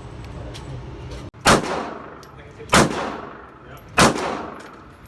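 Three rifle shots from a Smith & Wesson M&P 15 AR-15 in .223, fired steadily about a second and a quarter apart, each sharp crack followed by a short echoing tail.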